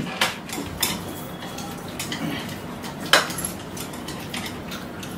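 Chopsticks clicking and scraping against plates as several people eat noodles quickly, with scattered small clicks and one sharper click about three seconds in.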